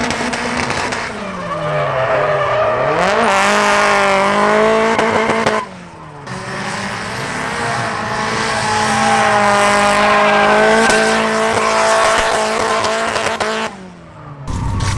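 Car engine revved and held at high revs: its pitch dips and climbs back about a second in, then holds steady for several seconds. The sound breaks off sharply near the middle and again near the end.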